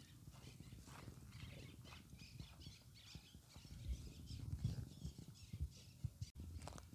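Faint footsteps and rustling through grass, with scattered light clicks and knocks.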